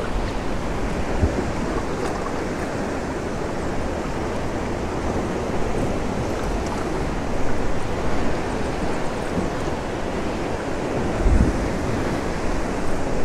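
Wind buffeting the microphone over a steady wash of sea water, with a couple of stronger low gusts.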